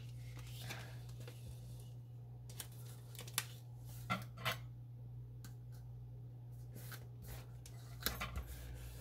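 Paper planner pages and sticker sheets being handled: a few short, faint crackles and clicks scattered over several seconds, above a steady low electrical hum.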